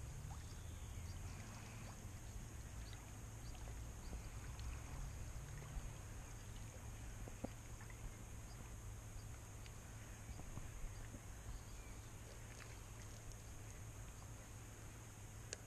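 Faint outdoor ambience: a steady low rumble with a faint high hiss and scattered light ticks.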